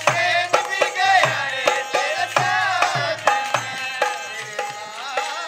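Indian folk music: a dholak drum keeping a steady beat under harmonium and a singing voice that bends its pitch.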